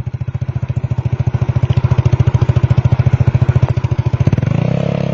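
Motorcycle engine running with a rapid, even pulsing that grows louder. About four seconds in the pulsing smooths into a steady drone.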